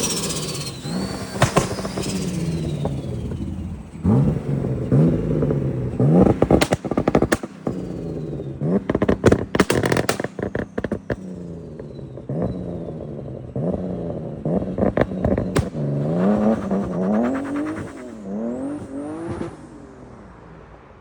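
Turbocharged BMW E34 5 Series engine blipped hard about eight times, each rev rising and dropping away, with turbo whistle and crackling pops and flutter as the throttle snaps shut. It fades out near the end.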